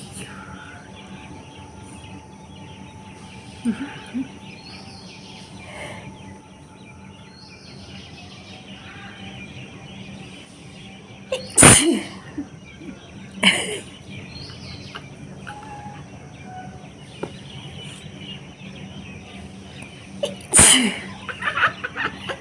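A person sneezing a few times, sneezes brought on by tickling the nose with a long blade of grass; the loudest come about halfway through and near the end, with birds chirping faintly in the background.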